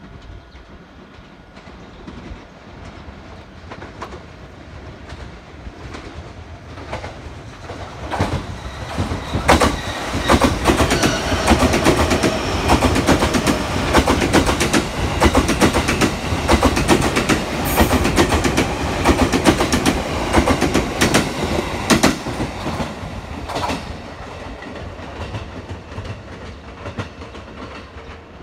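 JR East Series 255 electric limited express passing through a station at speed without stopping: it approaches, rushes by with a rapid clatter of wheels over rail joints, loudest through the middle, then fades as it moves away.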